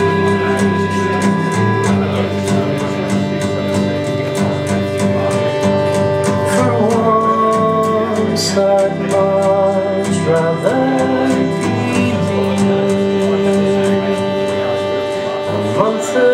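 A song with singing and guitar, played back over a hi-fi system of Focal Utopia loudspeakers driven by Naim electronics.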